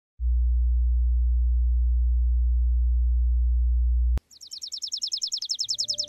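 A steady low hum for about four seconds that cuts off abruptly, then a chipping sparrow's song: a fast, even trill of high, dry chip notes.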